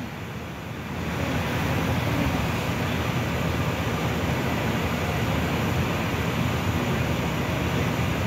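Steady low rumble with a hiss over it, the running machinery of the docked SS Badger car ferry; it swells slightly about a second in and then holds.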